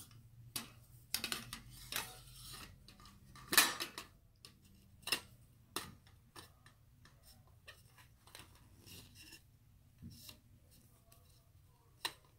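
Wire basket of a pole shower caddy clinking and clicking against the pole and its plastic collar as it is slid on and fitted into place: a string of short knocks and rattles, loudest about three and a half seconds in, then scattered clicks.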